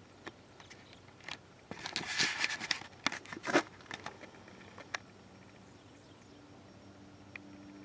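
A burst of crackling, rustling noise close to the microphone for about two seconds. From about halfway on comes a faint steady drone that slowly grows, the engine of a crop-spraying airplane passing high overhead.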